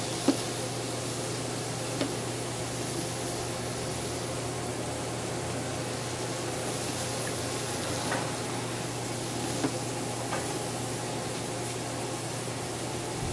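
Breaded chicken cutlets frying in a skillet, a steady sizzle with a low hum underneath and a few light knocks as pieces are handled.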